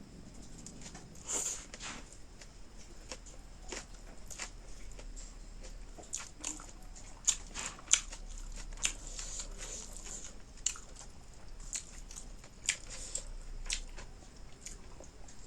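Close-miked eating sounds: a person chewing, with irregular sharp wet clicks and smacks of the mouth, a few louder ones about midway.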